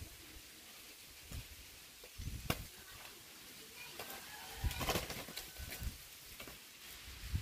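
Two gamecocks fighting, with wing flaps and scuffling: a sharp slap about two and a half seconds in and a cluster of them near five seconds.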